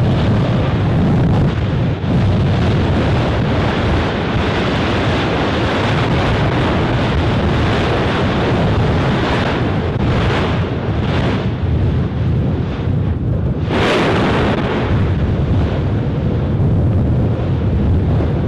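Strombolian eruption of Yasur volcano: a loud, continuous rush of noise as lava spatter is blasted from the vent, with wind buffeting the microphone. A few sharper surges come about two-thirds of the way through, the strongest a short blast shortly after.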